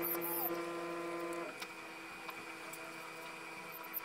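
Electric hydraulic pump of a 1/14 RC skid steer loader model whining steadily as the loader arm is worked, cutting off about a second and a half in; a fainter steady hum remains afterwards.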